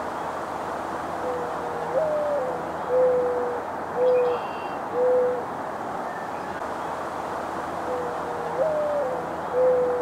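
Mourning dove singing: a soft opening coo that swells up and slides down, followed by three long, even coos about a second apart. The song starts over near the end, above a steady background hiss.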